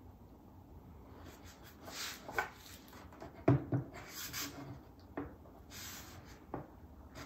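Hands working a wooden bridge-clamping fixture on an acoustic guitar top: scattered rubbing and scraping on wood with a few sharp knocks, the loudest about three and a half seconds in.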